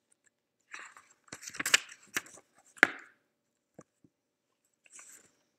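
Paperback picture book being opened and its pages turned by hand: paper rustling with a few sharp flaps and snaps in the first half, then a faint rustle near the end.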